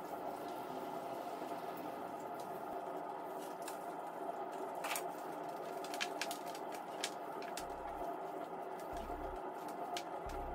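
Potting mix being crumbled off a plant's roots by hand into a plastic bucket: soft rustling and scattered crackle of falling soil and handled leaves, with a few sharper clicks, over a steady background hum.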